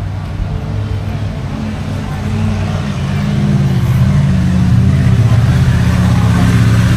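An engine running nearby, growing louder about three seconds in and then holding steady.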